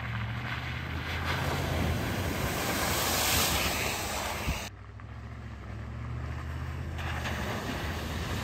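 Ford Raptor pickup's V8 engine running as the truck drives through mud and slush, growing louder as it passes close by about three seconds in. After an abrupt cut it is heard again driving through a puddle, with tyre noise and splashing.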